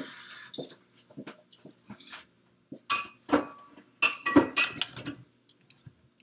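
Kitchen utensils and containers clinking and knocking against each other and the counter: a scattered run of sharp hits, a few of them ringing, with the loudest clatter about three seconds in and again between four and five seconds in.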